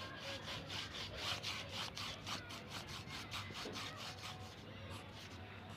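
Pencil scratching on paper in quick back-and-forth strokes, about five a second, which stop about four and a half seconds in.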